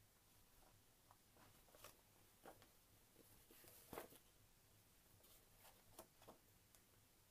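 Faint, scattered rustles and soft clicks of a folded paper signature being handled while a thin satin ribbon is threaded through its holes, the loudest about four seconds in.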